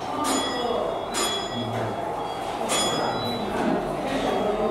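A bell struck three times at uneven intervals, each strike ringing on with clear high tones, over the hum of voices in a large room.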